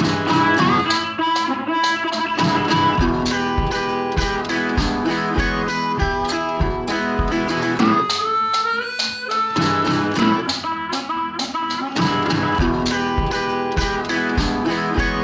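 Background music: plucked guitar with a steady beat.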